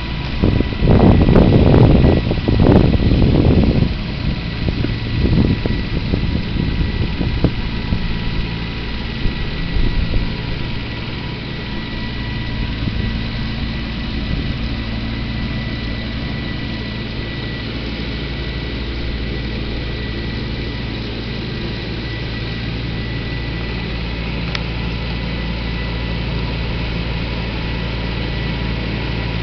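Compact utility tractor engine running steadily as it pulls a mower through grass. A few loud low rumbling bursts come in the first four seconds.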